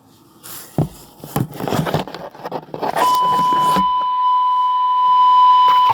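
Police radio scanner: crackling static with sharp clicks from keyed transmissions, then a steady high beep tone, an alert tone, held for about three seconds before it cuts off.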